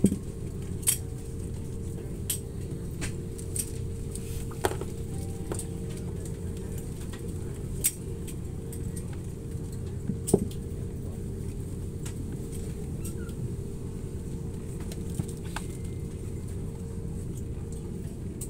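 Steady cabin hum of an Airbus A330neo with its Rolls-Royce Trent 7000 engines at idle as it rolls slowly onto the stand, with a constant drone running through it. Scattered sharp clicks and clinks from inside the cabin sound over the hum, the loudest about a second in and around the middle.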